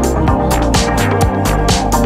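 Electronic dance music: a steady drum beat with a bass line and sustained chords.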